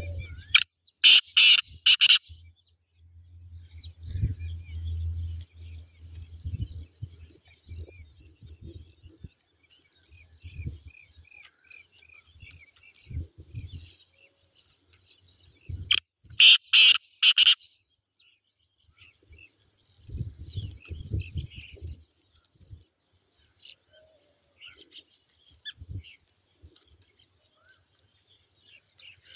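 Male black francolin calling twice, about fifteen seconds apart, each call a quick series of about four loud notes lasting under two seconds. Faint chirps of small birds between the calls.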